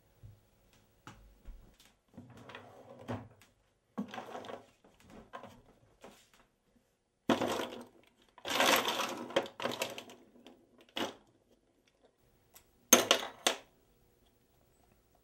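Irregular clicks, knocks and clattering, as of small hard objects being handled and set down, in separate bursts with short pauses between; the loudest come about seven seconds in, around nine seconds, and near thirteen seconds.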